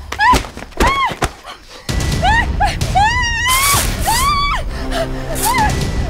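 A woman screaming and crying out in a struggle as she is grabbed and pulled down. A few thuds of the scuffle come in the first second or so.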